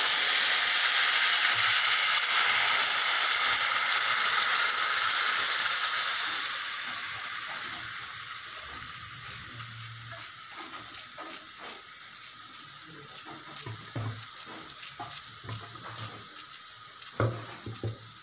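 Boiled red lentils (masoor dal) poured into a hot pan, sizzling loudly, the sizzle dying away over several seconds. Then a metal ladle stirring the dal, with light knocks and scrapes against the pan.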